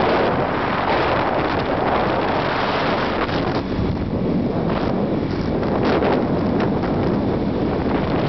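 Steady wind rush buffeting the microphone of a moving motorcycle, with road noise underneath.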